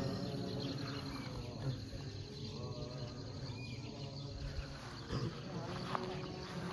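Insects chirring steadily.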